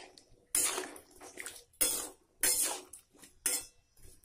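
Flat metal spatula scraping and stirring cubed potatoes, carrots and beetroot around a metal kadai, in four separate strokes.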